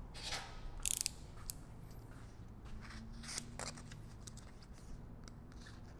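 Scissors cutting excess off a sheet of 3M 1080 carbon fiber vinyl wrap film: a few short, crisp snips with rustling of the film, the sharpest about a second in and two more a little past the middle.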